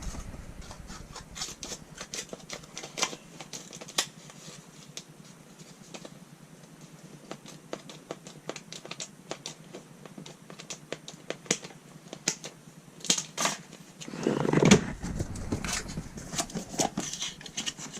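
Scissors cutting a bitumen sound-deadening mat: irregular sharp snips and clicks, with a louder rustle of the mat being handled about three-quarters of the way through.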